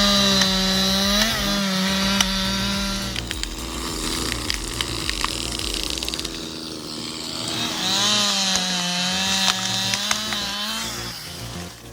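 Chainsaw running at high revs, its pitch dipping and recovering as it works; it drops away about three seconds in, leaving light rattling and ticks, then revs up again for a few seconds near the end.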